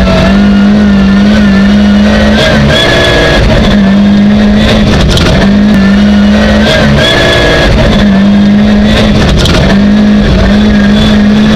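Competition car's engine running loud at high revs, heard from inside the cabin, its pitch holding steady for a second or two at a time with brief drops in between.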